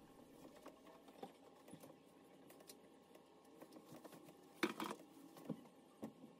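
Near silence with a few faint scattered clicks, and one brief louder noise about four and a half seconds in.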